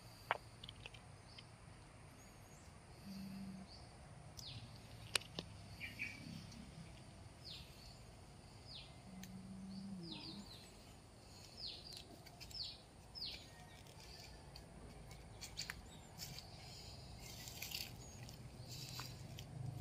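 Small birds chirping, a string of short, high, falling notes repeated every second or so over a faint steady background hiss. Two sharp clicks, one just after the start and one about five seconds in, are the loudest sounds.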